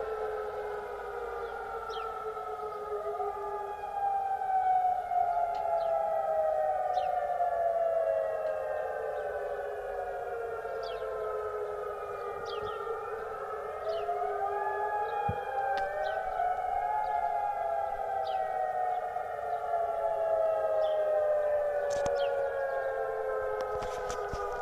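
Civil defence warning sirens wailing, several at once and out of step: each rises quickly and then falls slowly over about ten seconds. They are sounded to announce a curfew. A few sharp clicks come near the end.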